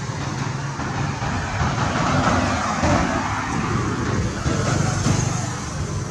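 Road traffic: a motor vehicle's engine running, with a swell of engine and road noise about two seconds in as it passes.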